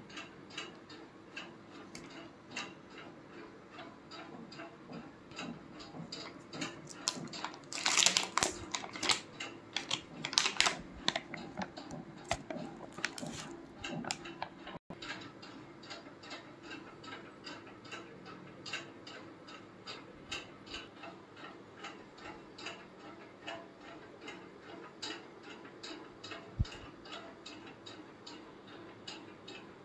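Steady, regular ticking that runs under everything, with loud crinkling and crackling of aluminium foil from about 7 to 11 seconds in, as the foil cover is peeled off a food tray.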